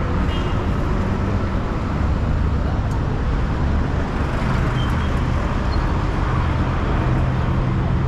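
Road traffic: car and minibus engines running and tyres passing close by on a busy multi-lane city street, a steady low hum with no break.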